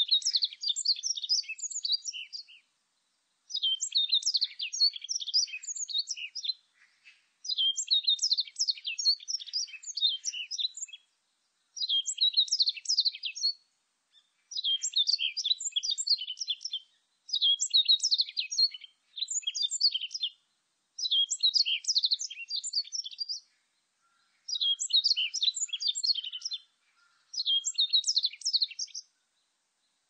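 Japanese white-eye singing: about ten quick phrases of rapid, high twittering notes, each two to three seconds long with short pauses between.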